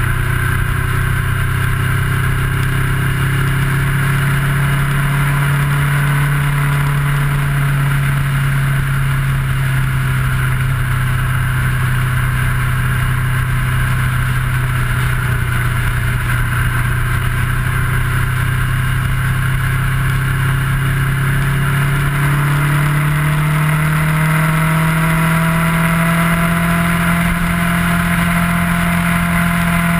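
Kawasaki ER-6f's parallel-twin engine running at a steady cruise, its note rising a little over twenty seconds in as the bike speeds up, with a constant rush of wind and road noise on the bike-mounted microphone.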